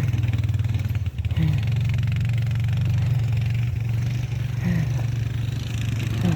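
Snowplow truck's engine running with a steady low hum, with a few brief rises in pitch.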